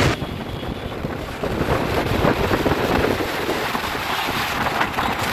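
Wind rushing over the microphone of a phone held up on a moving motorbike, with motorbike and road noise underneath.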